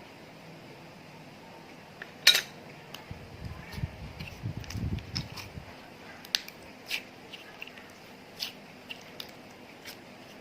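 Slime-mixing handling sounds: scattered clicks and taps of utensils against containers, with one sharp knock about two seconds in and a stretch of low handling noise in the middle.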